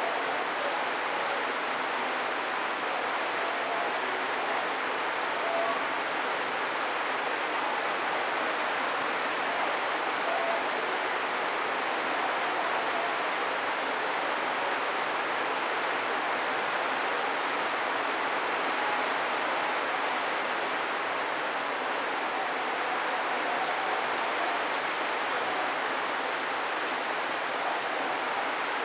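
Steady rain falling on coconut palms, an even hiss of rainfall with no breaks.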